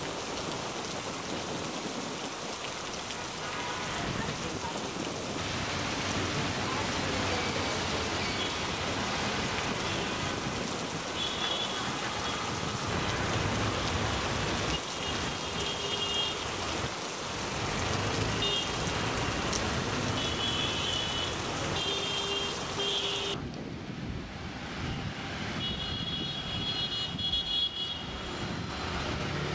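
Steady rain hiss on a city street with traffic, broken now and then by short high beeps. About two-thirds through the sound turns duller.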